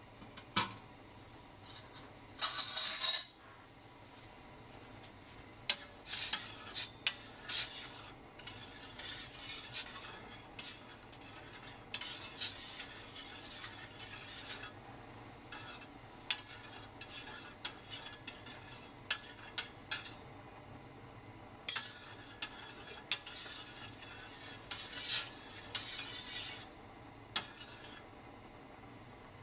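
Metal spoon stirring liquid in a stainless steel saucepan, scraping and clinking against the pan in irregular runs with short pauses. A brief louder noise comes about two seconds in, before the stirring starts.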